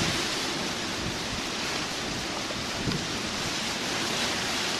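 Steady rushing noise of storm wind and rain, with no distinct events.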